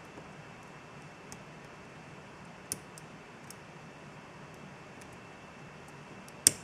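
Faint, scattered metallic clicks of a lock pick working the pins of a Mul-T-Lock Interactive padlock cylinder while the outer pins are checked, with one sharper click near the end.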